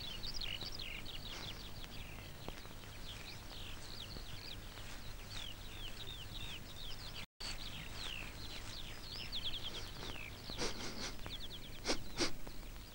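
Birds chirping and twittering in a quick, continuous chorus of short falling whistles over a low soundtrack hum. The sound cuts out for a moment about seven seconds in. A few sharp clicks come near the end, the loudest two close together.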